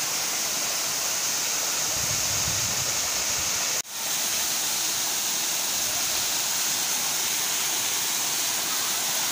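Steady rush of a forest waterfall running in full, forceful flow. It cuts out for an instant about four seconds in, then fades back up.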